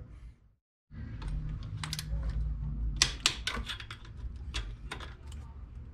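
Socket wrench clicking in irregular strokes as the throttle body's mounting bolts and nuts are run down and tightened.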